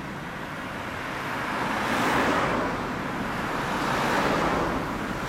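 Cars passing one after another in slow street traffic: tyre and engine noise swelling and fading, loudest about two seconds in and again about four seconds in.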